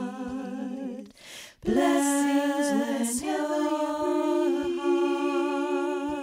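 Several women's voices singing a cappella in harmony, holding long sustained notes. About a second in there is a short pause with an audible breath in before the voices come back. Soft thumps from a chest-tapping rhythm recur about every second and a half underneath.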